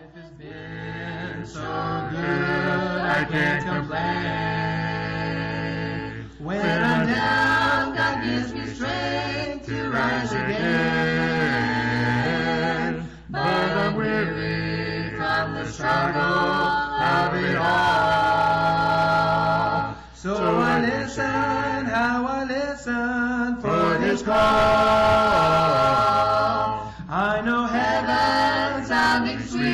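Background music: an unaccompanied vocal group singing in harmony, starting right at the beginning after a brief silence.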